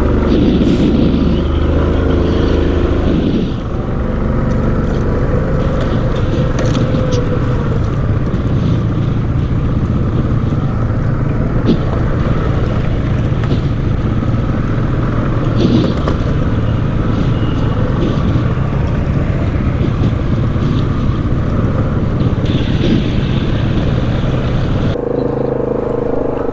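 ATV engine running as the machine rides along a rough trail, with scattered knocks and rattles over the bumps. Near the end the engine settles into a steadier, even tone.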